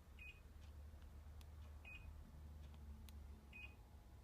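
Daikin AN25EDS-W air conditioner's indoor unit giving three faint short beeps, about one every second and a half, each acknowledging a mode-button press on the remote. Faint clicks fall between them.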